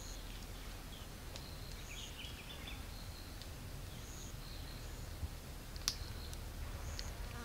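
Forest ambience: short, high bird chirps and whistles repeating over a steady low rumble, with a few sharp clicks in the second half, the loudest about six seconds in.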